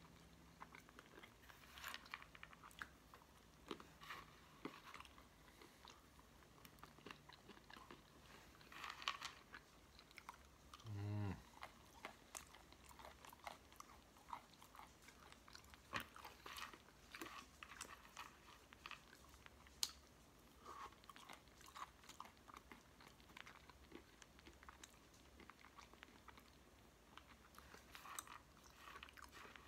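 A person chewing mixed nuts and raisins close to the microphone: quiet crunching and mouth clicks, scattered throughout. About eleven seconds in comes one brief low sound that falls in pitch.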